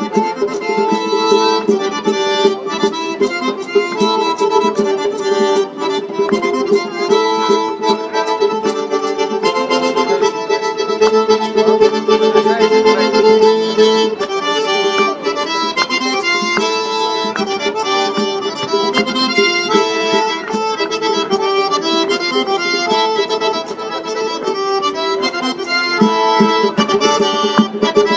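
Accordion playing fast traditional Circassian dance music, with sustained notes under a quick melody and sharp clicks throughout.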